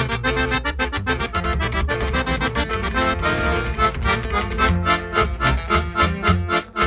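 Live norteño band instrumental break: a button accordion plays the lead over a strummed twelve-string guitar and an upright bass.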